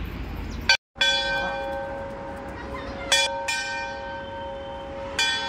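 Hindu temple bell struck several times at uneven intervals, each stroke ringing on with a clear metallic tone that slowly fades.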